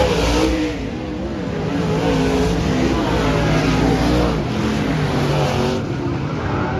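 Dirt-track stock car engines running on the oval, their pitch rising and falling as they rev.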